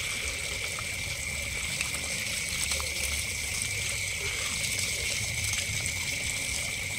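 Tap water pouring steadily from a pipe onto a plastic basket of small fish, splashing and trickling through the basket as a hand stirs the fish to rinse them. A steady high insect trill runs underneath.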